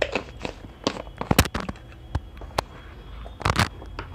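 Thick blended pigeon-pea soup simmering in a pan, its bubbles bursting with irregular pops and crackles, a quick cluster about a second and a half in and another about three and a half seconds in.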